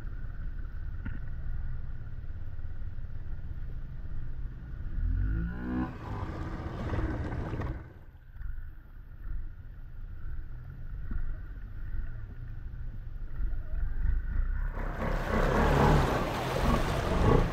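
ATV engine running low and steady while wading through deep floodwater. About five seconds in it revs up with a rising pitch and water rushes, and from about fifteen seconds on loud churning and splashing of water pushed by the machine takes over.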